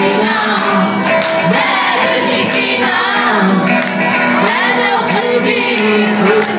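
Two acoustic guitars strummed while a crowd sings along loudly, with hand clapping in time.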